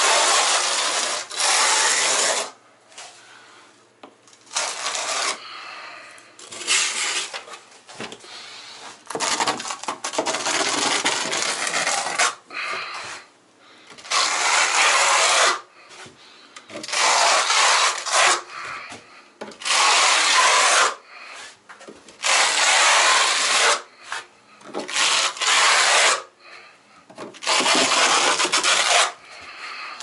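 Steel notched trowel scraping thinset mortar across a shower wall, combing it out evenly in about ten long strokes, each lasting one to three seconds, with short pauses between.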